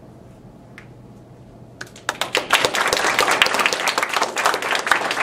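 Quiet room tone, then about two seconds in a small audience starts clapping and keeps applauding.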